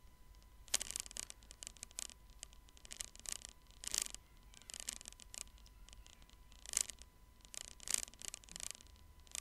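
Irregular clicks and taps from a computer mouse and keyboard, a few each second, some in quick little runs.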